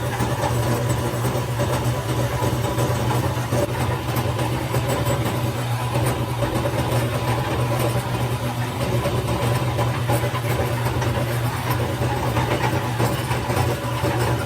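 Factory machinery running with a steady low hum and a faint steady whine above it.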